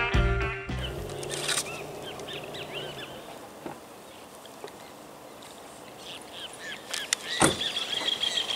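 Small birds chirping repeatedly in outdoor ambience, over a faint low hum that fades out about three seconds in. The tail of guitar music ends at the very start, and there is one sharp knock about seven and a half seconds in.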